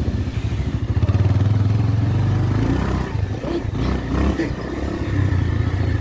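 A vehicle engine running steadily while under way, with a few clattering knocks about halfway through.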